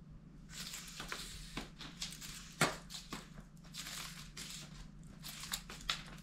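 Cat wand toy's lure and string being flicked and dragged over a rug and wooden floor: dry rustling scrapes with light ticks and taps, the sharpest tap about two and a half seconds in.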